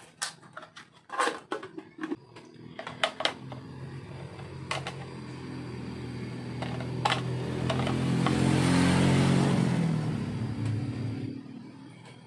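Clicks and taps of a plastic soap dispenser and its packaging being handled in the first few seconds. A steady low hum then swells up, is loudest about nine seconds in, and fades away before the end.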